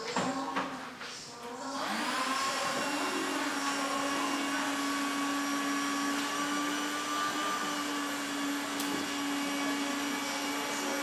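A steady mechanical drone, like a small electric motor running. It spins up with a brief rise in pitch about two seconds in, then holds one even pitch. A few knocks come just before it starts.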